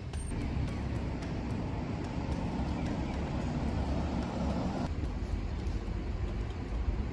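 Steady outdoor street ambience with a low rumble of traffic, which changes abruptly about five seconds in.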